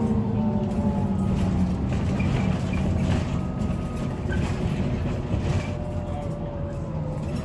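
Volvo B9TL double-decker bus on the move, heard from on board: its engine and driveline drone drops slowly in pitch over the first couple of seconds as it eases off, then holds at a steady pitch over a low rumble.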